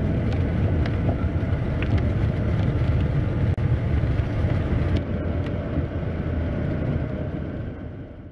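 Cockpit noise of a Piper Aztec's twin piston engines running as the aircraft rolls along the runway after landing: a steady low rumble with a few light clicks. It fades out near the end.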